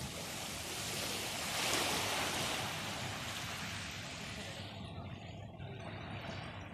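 Small waves washing up a sandy shore. The surf swells to its loudest about two seconds in, then eases to a softer wash, over a faint steady low hum.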